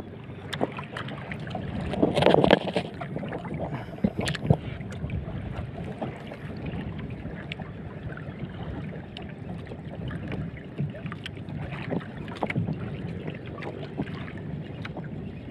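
Wind and sea water lapping around a small outrigger boat, with scattered light clicks from a spinning reel being cranked and handled. A louder stretch of handling noise comes about two seconds in.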